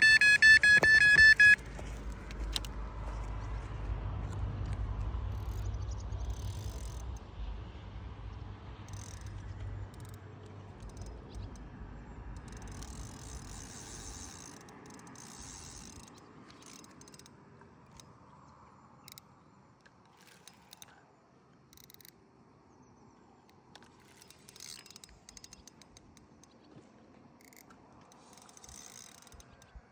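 Electronic carp bite alarm sounding one continuous high tone, the signal of a full run as a fish takes the bait, cutting off about a second and a half in. A low rumble follows until about halfway, then only scattered faint clicks and rattles.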